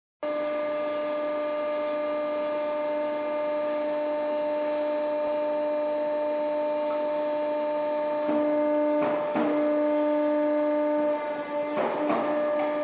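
Sunrise IW45MQ hydraulic ironworker running, its pump motor humming steadily. About eight seconds in the hum gets louder as the machine takes load, with sharp clacks around nine seconds in and again near the end as the shear cuts a flat bar.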